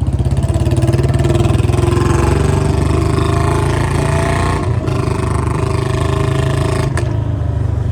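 Royal Enfield Bullet's single-cylinder engine running with a fast, even beat. There is one sharp click near the end.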